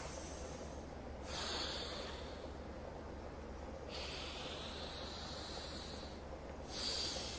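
A man's slow, audible breathing through the nose in anulom vilom (alternate-nostril breathing): long hissing breaths of a few seconds each, starting about a second in, at about four seconds and near the end. A steady low hum runs underneath.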